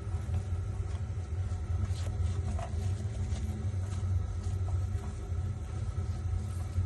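A steady low rumble with a faint steady higher hum above it, and a few light ticks.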